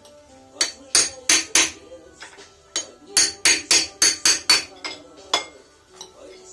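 A hammer taps sharply on metal, bending over the tab of a steel lock washer on an IZh Jupiter 4 motorcycle engine. There are about a dozen ringing strikes: a quick group of four, then a faster run of about eight, with one last tap.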